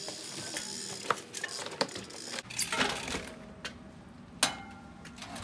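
Irregular light clinks and knocks of small hard objects being handled, with one louder knock near the end.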